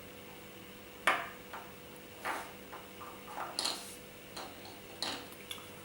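A handful of sharp plastic clicks and taps as Beyblade Burst parts (layer, disk and Spiral driver) are handled and fitted together, the loudest about a second in.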